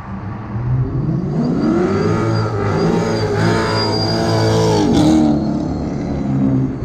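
Chevrolet Corvette V8 accelerating hard past, its engine note rising through the revs from about a second in. The pitch drops sharply about five seconds in as the car goes by and pulls away.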